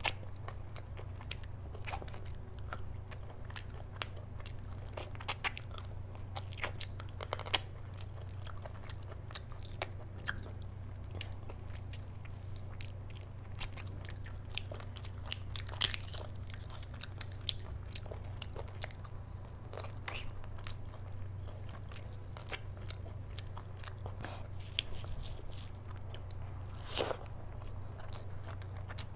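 Close-miked eating: biting and chewing mutton off the bone, then a mouthful of curry rice, with many short sharp mouth clicks and smacks. A steady low hum sits underneath.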